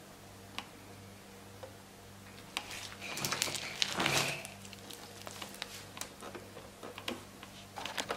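Crunchy foam-bead slime being stretched and squished by hand, giving scattered small clicks and crackles, with a denser patch of crackling about three to four seconds in. A faint steady electrical hum runs underneath.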